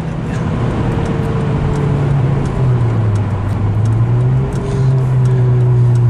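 Honda Civic 1.8 i-VTEC four-cylinder engine heard from inside the cabin while driving: a steady engine drone over road noise. Its pitch sags about halfway through and climbs again near the end.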